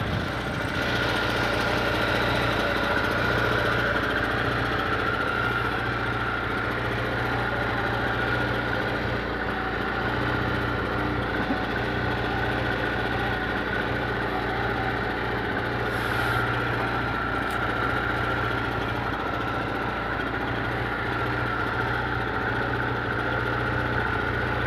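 Small Honda GX petrol engine on a wooden fishing boat, running steadily at an even speed with no change in pitch.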